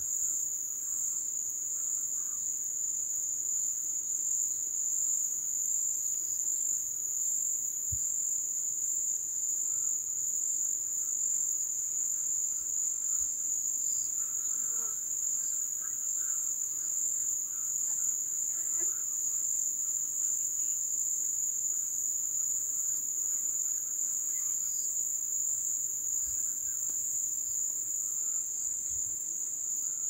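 Chorus of crickets: a steady, high-pitched trill that never breaks, with faint scattered chirps of other creatures behind it, most of them around the middle.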